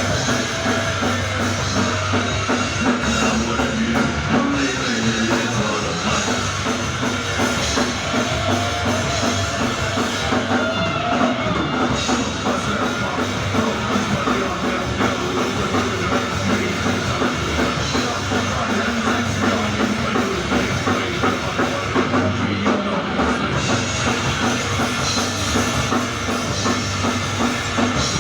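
Heavy metal band playing live: distorted electric guitars and bass over a drum kit with a driving bass drum, loud and unbroken.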